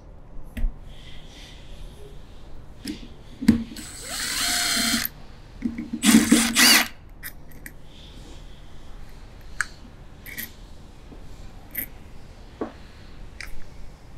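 A power drill runs in two short bursts near the middle, the first spinning up in pitch and holding for about a second, the second briefer. Around them come light metallic clicks of connecting-rod caps and bolts being handled on the bench.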